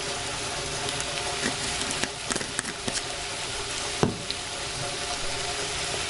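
Chicken and frozen vegetables sizzling steadily in a frying pan, with a few light clicks and one sharper knock about four seconds in.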